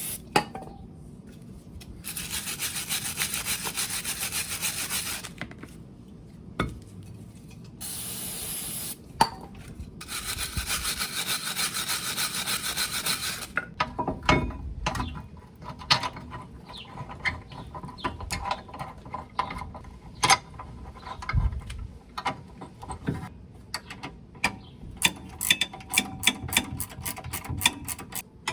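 Wire brush scrubbing metal brake parts in three bursts, then metal parts clinking and tapping together in quick, irregular knocks.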